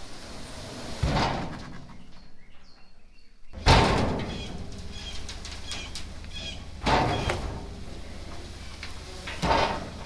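Dump trailer's electric hydraulic pump starting about a third of the way in and running with a steady low hum as it raises the steel bed. Several loud, sudden noises come about three seconds apart as the logs shift and slide in the tipping bed. Faint bird chirps.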